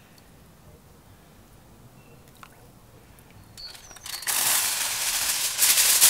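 Aluminium foil being pulled off its roll and crinkling, a loud rustle that starts about four seconds in after a quiet stretch.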